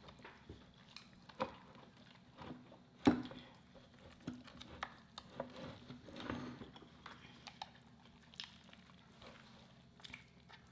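Quiet eating sounds: chewing lobster meat and handling the cooked lobster's cracked shell and claw, with scattered clicks and taps, the sharpest about three seconds in.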